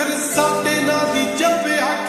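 A slowed-down, reverb-heavy edit of a Punjabi pop song: music with a sung vocal line.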